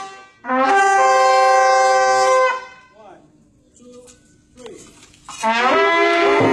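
A group of shofars, several of them long twisted horns, blown together in long sustained blasts. One blast of about two seconds, a pause of nearly three seconds, then another blast that scoops up in pitch as it starts, about five and a half seconds in. Several horns sound at once on slightly different pitches.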